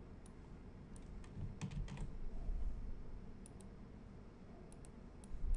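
Computer keyboard and mouse clicks, scattered in two short clusters, with some low dull thumps in the first half.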